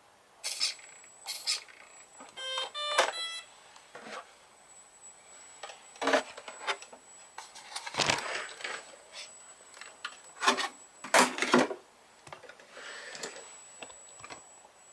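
Kyosho Blizzard FR radio-controlled snow vehicle on its custom tracks, driven in short bursts: its tracks and drive clatter in about a dozen brief spells. A thin steady high whine runs underneath, and a quick run of short pitched beeps comes about two and a half seconds in.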